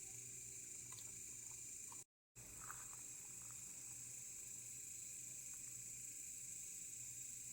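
Steady, high-pitched chorus of insects (crickets or similar) in a forest, with a few faint clicks; the sound cuts out completely for a moment about two seconds in.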